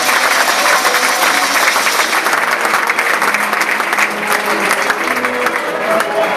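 Football stadium crowd applauding: dense, steady clapping from many hands.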